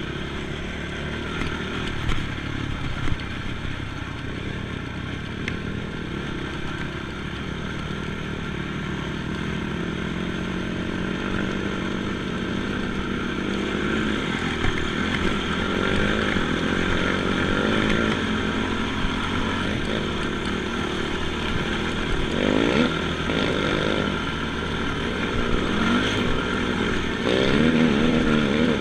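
ATV engine running steadily and growing slowly louder, with the revs rising and falling a couple of times near the end. A few sharp knocks come about two and three seconds in.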